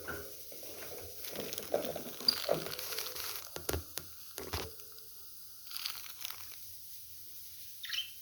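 Budgerigars making a few short, high chirps, one falling call near the end, among scratchy rustling and clicking.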